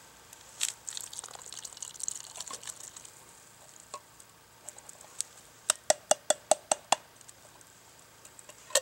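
Canned peas and their liquid poured from a tin can into a metal cooking pot, splashing for the first few seconds. Then comes a quick run of about seven light metallic taps, the can knocked against the pot to shake out the last peas, and one more louder tap near the end.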